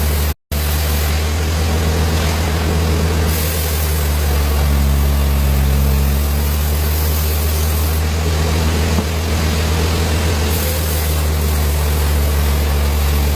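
Wood lathe's electric motor running steadily with a constant low hum and a hiss above it. The sound drops out for a split second near the start.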